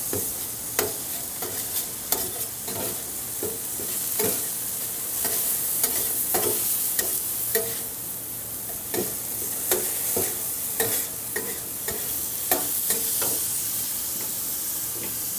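Ground meat sizzling on a hot flat-top griddle while a metal spatula chops and scrapes through it, with irregular clicks and scrapes of the blade against the griddle over a steady frying hiss.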